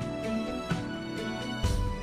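Background music: an instrumental melody over a steady beat, with heavier bass hits near the end.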